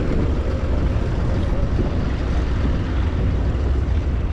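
Tractor engine running steadily, with gusting wind buffeting the microphone.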